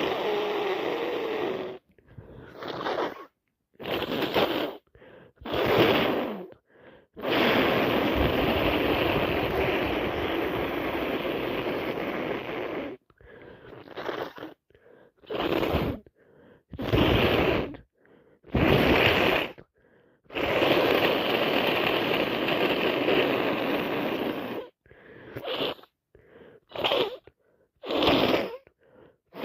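Short, sharp breaths and sniffs from a person with a head cold and allergies, coming in quick bursts with silent gaps between them. There are also two longer stretches of steady hissing noise of several seconds each.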